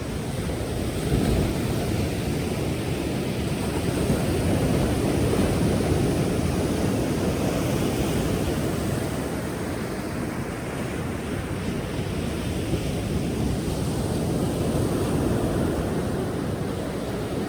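Pacific Ocean surf: waves breaking and washing in as a continuous deep rush, swelling and easing slowly over several seconds.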